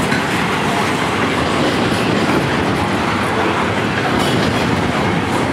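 Double-stack intermodal freight train's well cars rolling past close by: a steady, loud rumble and rattle of steel wheels on rail.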